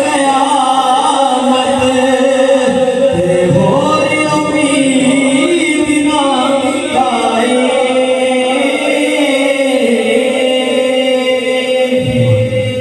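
Man singing a devotional naat into a microphone, unaccompanied, in long drawn-out melodic phrases.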